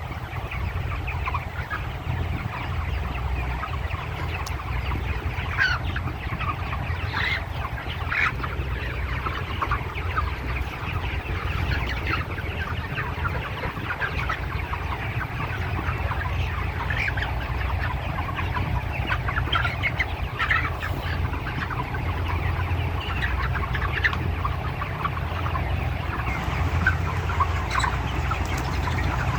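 A flock of broiler chickens clucking and calling, many short overlapping calls scattered throughout, over a steady low hum.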